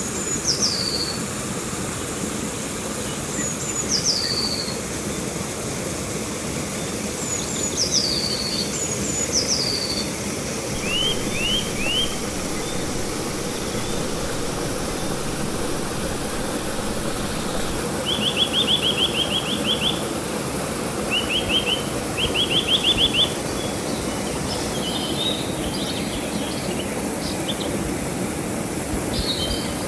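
River water rushing steadily, with songbirds calling over it: several high down-slurred whistles in the first ten seconds and quick rattling trills a little past halfway.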